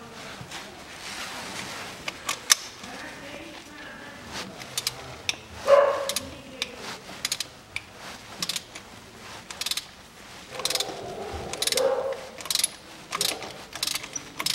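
Ratchet wrench with a spark plug socket clicking in quick, irregular runs while spark plugs are unscrewed from a Toyota 1MZ-FE V6. Two louder, longer noises come about six and twelve seconds in.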